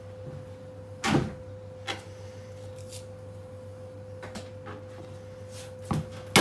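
A few knocks and bumps as a butcher's knife and lamb legs are handled on a plastic cutting board, the loudest about a second in, over a steady hum.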